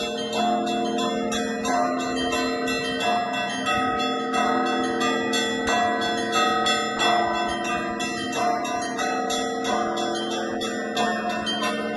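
Russian Orthodox church bell ringing (zvon): small bells are struck in a quick, steady pattern, several strokes a second, over the lingering ring of larger bells.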